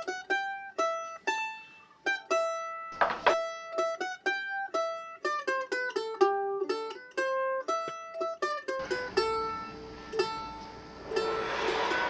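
Background score: a plucked-string instrument, mandolin-like, playing a melody of quick single notes that each die away fast. About nine seconds in, a low hum and hiss join underneath.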